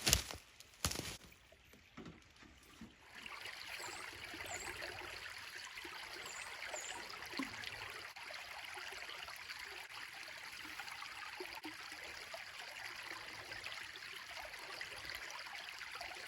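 A few knocks in the first second, then steady running water like a stream or creek, with a few faint high chirps over it. The water stops abruptly at the end.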